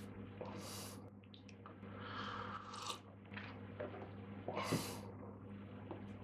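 Small handling noises of a hand with a ceramic tea mug and ashtray on a cloth-covered table: a few brief rustles and scrapes, the loudest a knock about four and a half seconds in, over a steady low electrical hum.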